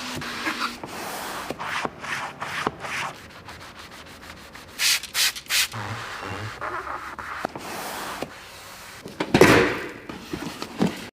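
Irregular rubbing and scrubbing strokes from hand detailing work on a car's surface. A few short, sharp swishes come about five seconds in, and a louder stroke near the end.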